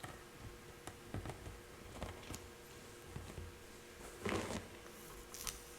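Light tapping and handling noises picked up by a sensitive condenser microphone with its echo effect turned fully up: a few faint clicks, then a louder knock a little past four seconds in and sharp clicks near the end.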